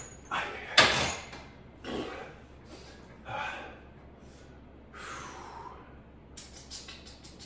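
A man breathing hard in short, noisy gusts about every second or so during a set of weighted ab crunches. There is one sharp knock about a second in and a few light clicks near the end.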